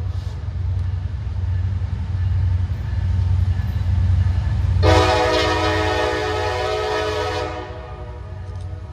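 Diesel locomotive running with a steady low rumble. About five seconds in, its air horn sounds one long blast of roughly two and a half seconds.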